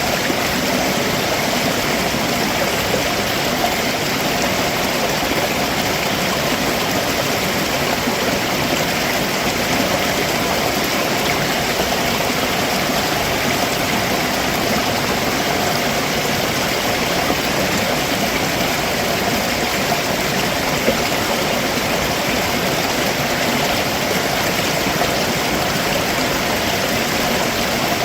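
Steady rush of a stream running over rocks below a waterfall.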